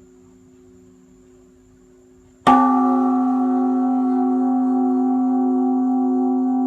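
A large temple bell (đại hồng chung) struck once about two and a half seconds in, then ringing on with a slow pulsing hum. Before the strike, a faint steady tone carries over from earlier ringing.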